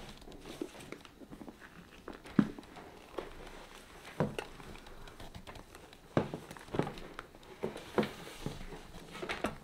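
Handling noise from a small coated-canvas and leather crossbody bag being pressed shut and picked up, its contents shifting inside: irregular soft knocks, clicks and rustles, the sharpest about two and a half seconds in.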